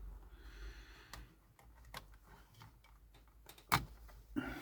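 A few light clicks and taps of small plastic laptop parts being handled while the cooling fan is taken out. The sharpest click comes a little under four seconds in.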